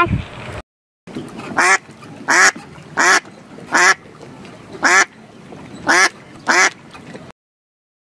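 Duck quacking: seven short, loud quacks, roughly one every half second to a second, with a slightly longer pause midway.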